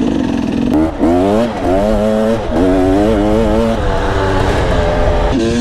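Two-stroke enduro motorcycle engine being revved hard off-road. Its pitch climbs and drops back several times as the throttle is worked and gears change.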